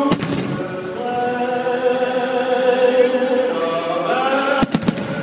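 Choral singing with long held notes, over which firework shells go off: one sharp bang at the start and a quick run of three bangs near the end.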